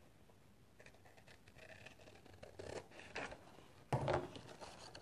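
Scissors snipping through book pages in a few quiet cuts, then a louder rustle and knock of paper about four seconds in as the pages are handled.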